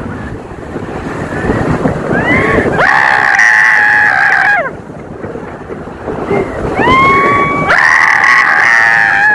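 People riding a towed banana boat screaming: two long held screams, each about two seconds and sliding up at the start, over a steady rush of wind on the microphone and water.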